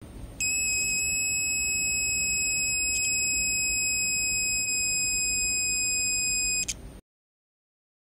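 Buzzer of a homemade water-overflow alarm sounding one continuous high-pitched tone, set off by water reaching its sensor; it stops suddenly near the end.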